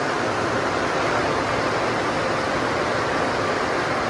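Steady rushing of an automatic car wash tunnel at work: water spray and running wash equipment, with a faint steady hum under the noise.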